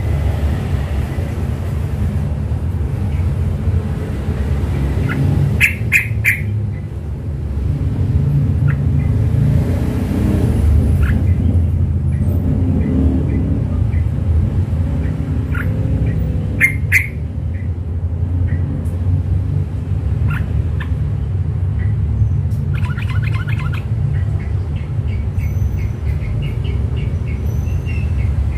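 Caged yellow-vented bulbul practising its song: short scattered chirps and squawks, with a quick rattling run of notes about three-quarters of the way through. A steady low rumble lies underneath.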